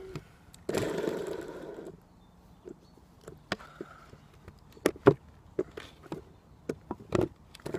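A skateboard wheel with its bearings being pushed and twisted by hand onto its truck axle, a tight fit. A rough rustling scrape about a second in, then a string of sharp clicks and knocks as the wheel works against the axle and truck.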